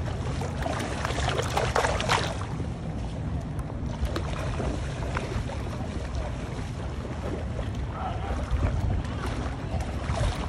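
Wind buffeting the microphone as a steady low rumble, with water sloshing and splashing as someone wades through shallow water. The splashing is loudest about a second or two in and again near the end.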